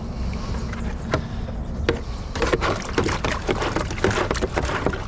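Bailing water out of a small fibreglass boat with a cut-down plastic jug: irregular scooping splashes and knocks of the jug against the hull.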